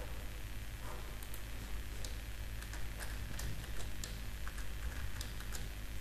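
Computer keyboard being typed on: irregular, separate key clicks over a steady low hum.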